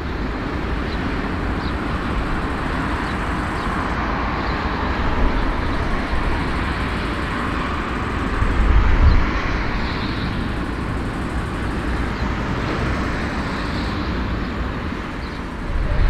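Jet engines of a four-engine airliner running as it taxis, a steady roar heard from a distance across the airfield, with a brief swell of low rumble about nine seconds in.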